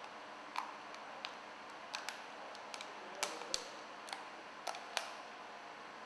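Light, irregular clicks and taps of a clear plastic cable-splice mold being handled and fitted over a cable joint, against a faint steady hiss.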